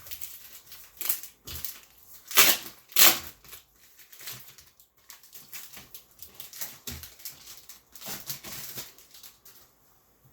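Packing material being rustled and crinkled as a graded comic slab is unwrapped from the box, in irregular crackles with two louder crunches about two and a half and three seconds in.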